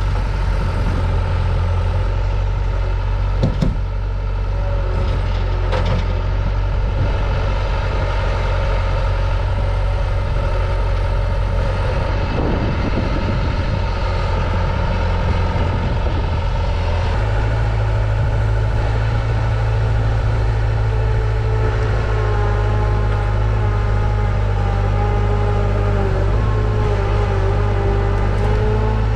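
Diesel engine of compact construction equipment running steadily under work, with a sharp knock about three and a half seconds in and a change in the engine note about halfway through.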